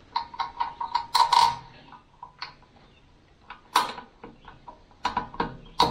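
Small metal clicks and clinks from hand-fitting a small-engine carburetor and starting its mounting bolt: a quick run of clicks in the first second and a half, then scattered single clicks.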